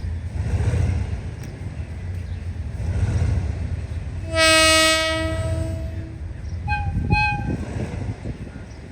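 Train horn sounding one long, loud blast about four seconds in, over a steady low rumble. About a second after it ends, a higher-pitched horn gives two short toots.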